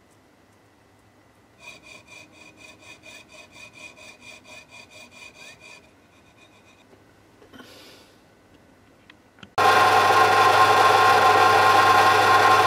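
Fine jeweller's saw cutting metal with quick, even strokes, about four a second, the blade ringing. About ten seconds in, a small drill press motor starts and runs steadily and much louder, drilling a brass strip for a servo bracket.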